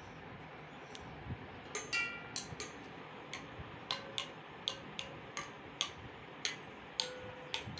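Stainless steel bowls holding different amounts of water struck with plastic sticks, played as a jal tarang. About two seconds in, light taps begin at about three a second, some ringing briefly at different pitches set by each bowl's water level.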